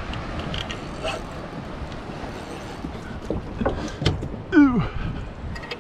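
Wind buffeting the microphone over lapping water, with a few light knocks, and near the end a man's short, falling grunt of effort as he strains against a hooked fish on the rod.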